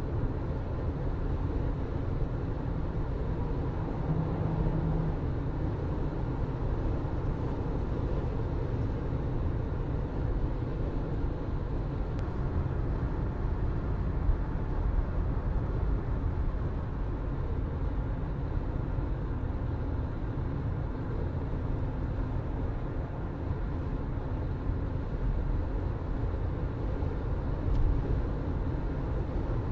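Car driving steadily along a road: a continuous low rumble of engine hum and tyre noise, even throughout.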